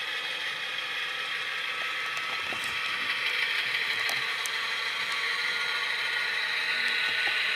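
HO-scale Athearn U50 model diesel locomotive running, its Tsunami decoder playing GE diesel engine sound through a small onboard speaker. The drive mechanism adds gear whir and light clicking. The sound grows slightly louder toward the end.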